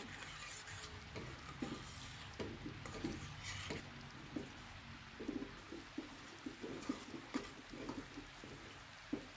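Wire whisk stirring thickening chocolate mochi batter in a stainless steel pot, giving irregular soft knocks and scrapes against the pot's sides and base as the batter cooks into a stiff dough.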